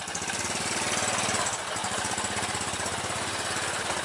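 Small motorcycle engine running as the rider pulls away at low speed. It gets louder over the first second or so as the throttle opens, then holds a steady, even pulse.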